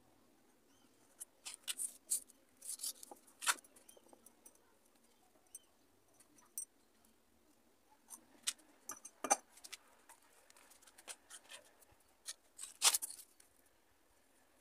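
Paper rustling and a marker pen scratching as a paper template is handled against a tube and traced on: irregular small taps and scrapes, with a couple of longer scratchy strokes.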